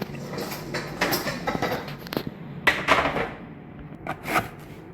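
Handling noises: a series of short rustles and light knocks, with the most marked bursts about a second in, near three seconds, and just after four seconds.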